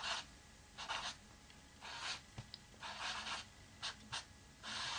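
Felt-tip marker writing numbers on paper: a series of about seven short, scratchy strokes with brief pauses between them.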